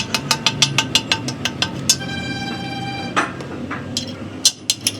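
Rapid metallic clicking, about six or seven clicks a second, broken in the middle by a steady ringing tone about a second long, followed by a sharp knock and more clicks near the end.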